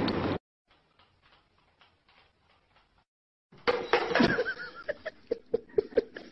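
A cat meowing loudly, cut off abruptly. After about three seconds of near silence, a run of irregular light taps and knocks begins.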